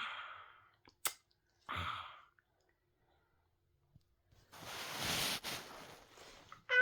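Breathy sighs or exhalations: two short ones early, with a sharp click about a second in, then a longer breathy rush about four and a half seconds in.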